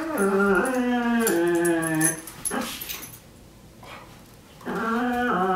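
A dog making long, drawn-out moaning vocalizations whose pitch steps up and down, like a whining howl. About two seconds of it, a short pause, then it starts again near the end.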